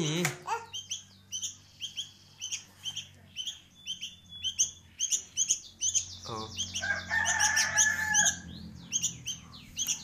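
Young sooty-headed bulbul (kutilang) fledgling, about a month old, giving quick, short, high chirps over and over: a bird just learning to sing. A lower-pitched call joins for a couple of seconds past the middle.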